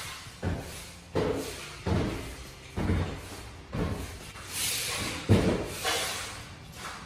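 A long-handled floor scraper striking and scraping a bare floor: sharp knocks roughly once a second, with a longer scraping rasp a little past the middle.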